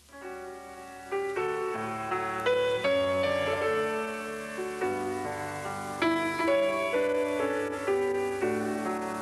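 Piano music starting up out of near silence: a melody and chords of struck notes, each one fading after it is played.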